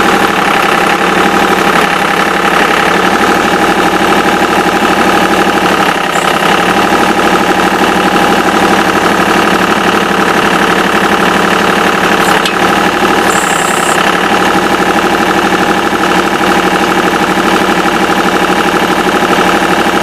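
1996 Ditch Witch 3500 trencher's diesel engine running steadily at a constant speed while its backhoe is worked.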